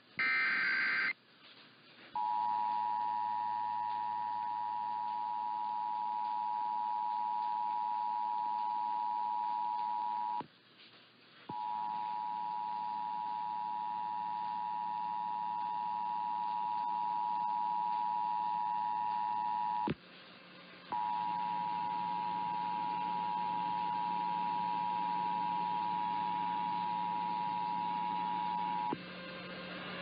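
Emergency Alert System broadcast received over AM radio: a short burst of EAS data header tones ends about a second in, then the EAS two-tone attention signal (853 and 960 Hz together) sounds steadily in three stretches of about eight seconds each, split by brief breaks that open with a click, over a faint radio hum.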